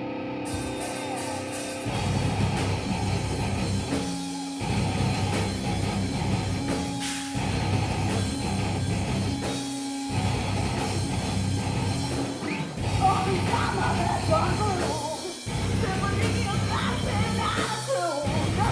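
Live hard rock band playing electric guitars, bass and drum kit: the full band crashes in about two seconds in and plays a stop-start riff, cutting out briefly every two to three seconds. A singer's voice joins in the second half.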